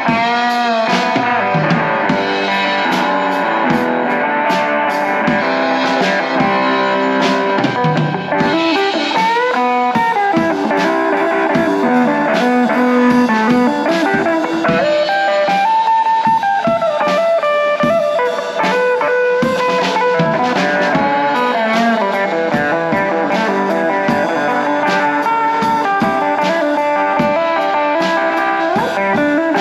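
Live electric guitar playing an instrumental break, with lead lines and string bends over a steady drum kit beat.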